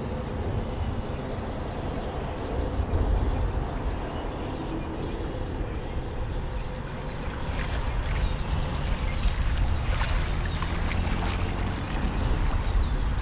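Hooked blue catfish splashing at the surface beside the boat as it is reeled in, a run of splashes from about halfway on, over a steady low rumble.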